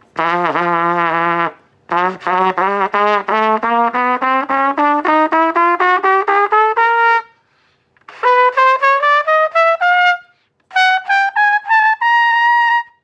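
Mendini trumpet, played with a 7C mouthpiece, running an ascending chromatic scale from low F sharp up to high C: a held low note, then short tongued notes climbing a half step at a time in three phrases with brief breath pauses, ending on a held high C.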